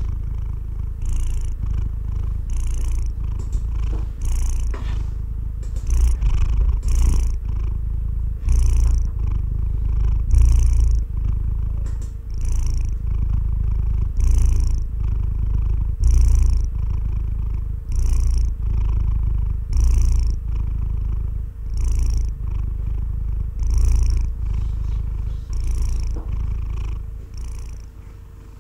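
A sleeping domestic cat purring close to the microphone: a continuous low rumble that swells with each breath, about one breath every two seconds. It fades slightly near the end.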